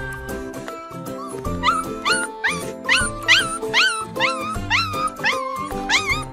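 Husky puppy giving a quick series of short, high yips, about two or three a second, each rising and falling in pitch, starting a little over a second in, over background music.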